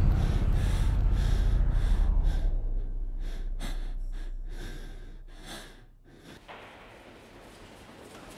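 A man panting hard through an open mouth, out of breath after running: quick heavy breaths, about three a second, that fade out after about six seconds. A low rumble underneath fades away in the first few seconds.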